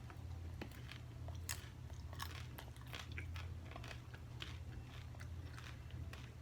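A person biting into and chewing a beef taco close to the microphone, with many short, crisp crunches. A steady low hum runs underneath.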